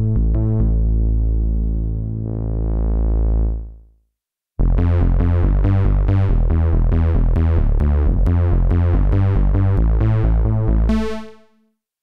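Roland JD-800 software synthesizer playing its "Modular Bass" preset: a synth bass line that fades out about four seconds in, then after a short silence comes back as a run of quick repeated bass notes, fading out near the end.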